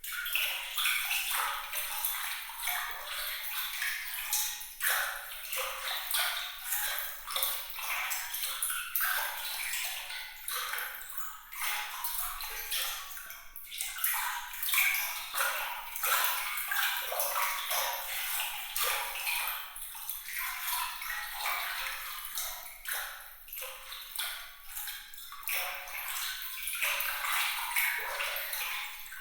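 Water trickling and splashing, thick with quick, bright droplet plinks. It keeps up steadily and is all treble, with no low rumble.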